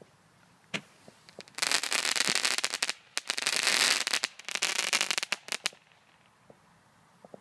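Firework crackling: a single sharp crack under a second in, then a dense run of rapid crackles with a steadier hiss in the middle, stopping after about five and a half seconds.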